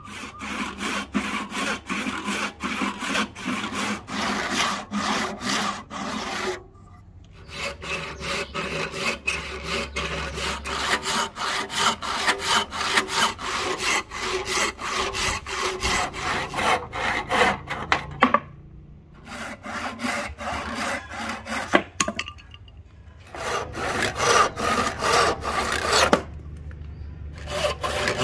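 Handsaw cutting through a block of rosewood in steady back-and-forth strokes, about two or three a second, stopping briefly a few times between runs of strokes.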